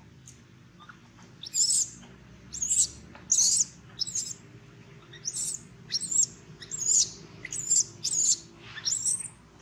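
Baby macaque's distress cries: about a dozen short, high-pitched shrieks in quick succession, starting about a second and a half in and repeating every half second or so.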